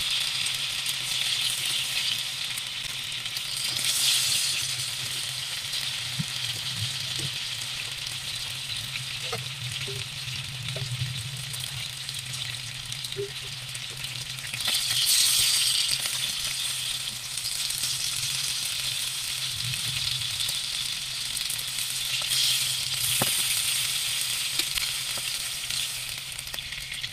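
Lucban longganisa sausages sizzling in their own rendered fat in a pan: a steady frying hiss with a few small pops. It swells louder a few seconds in, about halfway through and again near the end.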